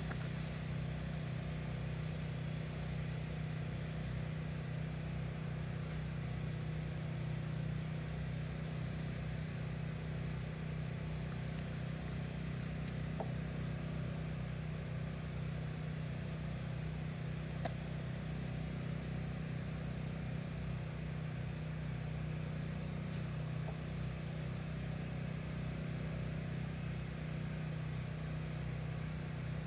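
A steady low motor hum that holds an even pitch throughout, with a few faint clicks.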